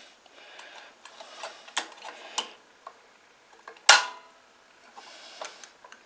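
Pliers clicking and tapping against metal at a lawn mower engine's carburetor, a scatter of small irregular clicks. The loudest is a sharp metallic click with a short ring about four seconds in.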